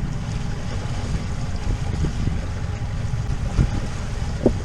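Boat running at slow trolling speed, about 2 knots: a steady low rumble of motor, wind on the microphone and water, with a couple of short thumps near the end.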